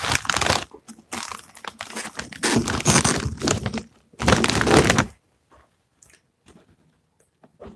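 Metallized snack-chip bag crinkling and rustling as it is handled, in several loud bursts, then only a few faint clicks for the last couple of seconds.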